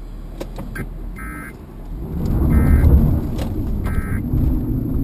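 Low road and engine noise inside a moving car, swelling strongly about two seconds in, while a short electronic beep sounds three times, about once every 1.3 seconds.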